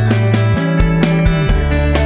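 Background music with a steady beat over a changing bass line.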